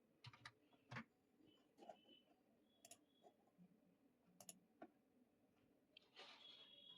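Near silence with a few faint, scattered clicks of a computer mouse and keyboard being used.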